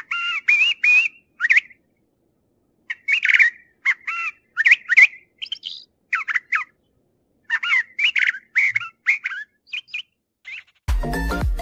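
A thrasher singing: a long run of short, varied whistled and chirping phrases, each a fraction of a second long, with brief pauses between them. Music starts near the end.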